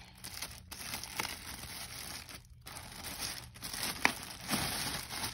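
Clear plastic bag crinkling as hands pull it off a new sneaker, with a short pause about two and a half seconds in and a sharp crackle about four seconds in.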